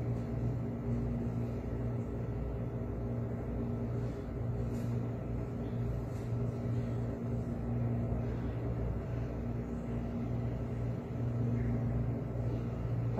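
A steady low machine hum with a constant droning tone.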